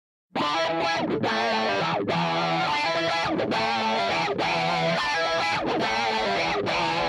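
Background music: an electric guitar intro with distortion starts abruptly a few tenths of a second in, after dead silence.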